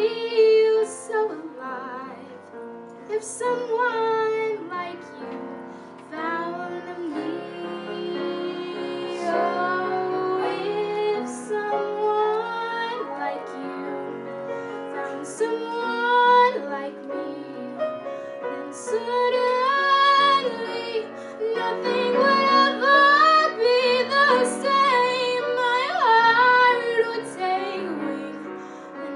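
A woman singing a ballad into a microphone, accompanied by grand piano; her voice grows louder and climbs higher in the second half.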